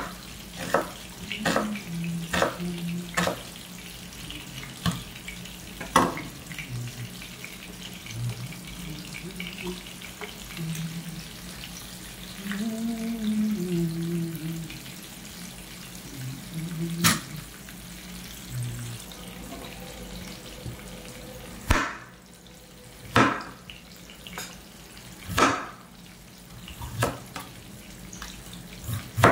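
Chef's knife chopping onion and then slicing a potato on a wooden cutting board: a run of sharp knocks at the start, a single loud one a little after the middle, and another run near the end. Under it, a steady sizzle of a piece of masala-coated chicken shallow-frying in oil in a non-stick pan.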